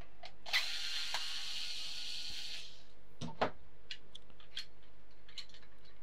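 Small cordless electric screwdriver running for about two seconds, backing a screw out of a plastic vacuum-cleaner handle. It is followed by a few light clicks and taps of plastic parts being handled.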